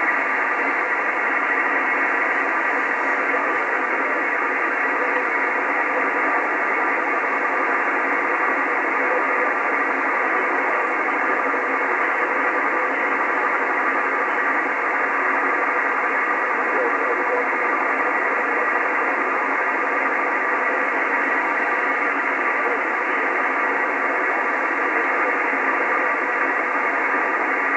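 Steady hiss of band noise from an HF amateur radio receiver in single-sideband mode, held within the narrow voice passband of the receiver's filter, while no station is transmitting. Faint steady tones run through the hiss.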